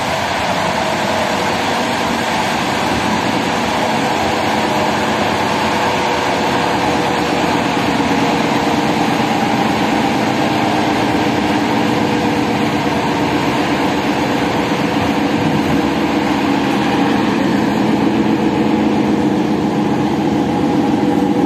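Passenger train running at speed, heard from on board: a steady rumble of the carriage and wheels on the rails with a low hum that grows slightly louder near the end.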